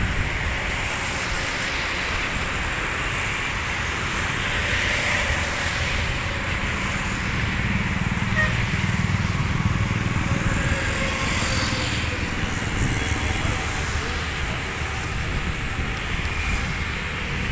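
Boeing 737 jet engines heard across the airfield: a steady rumbling roar that swells a little in the middle and then eases.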